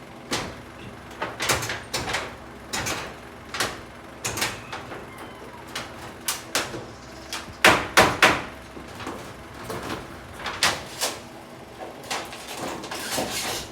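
Irregular knocks and bangs on a corrugated metal roof sheet during repair work, about one a second, with the loudest three close together about eight seconds in.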